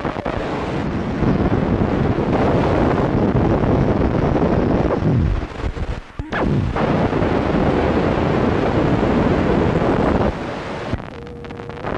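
Loud, sustained explosion rumble, like a nuclear blast sound effect, with a brief dip about six seconds in. It falls to a quieter rumble near the end, where a faint steady tone sounds.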